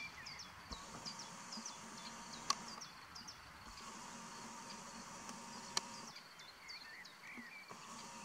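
Birds chirping in many short high notes over a high insect buzz that comes and goes in stretches of a couple of seconds. Two sharp clicks, about two and a half and six seconds in.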